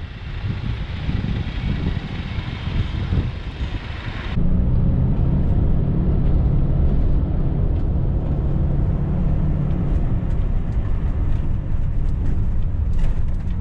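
Diesel engines of heavy-haul tractor trucks running as they pull multi-axle heavy-load trailers. The sound starts as a noisy mix with hiss, then changes abruptly about four seconds in to a steady low engine drone.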